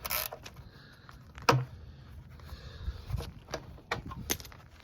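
Wrench and metal fittings handled while transmission cooler line fittings are worked loose from a radiator: one sharp knock about a second and a half in, then several lighter clicks and taps.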